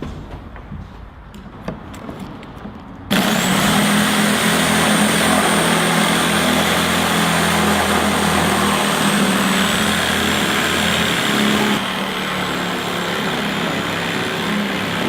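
A power tool's motor switched on suddenly about three seconds in, then running steadily with a high whine, a little quieter near the end.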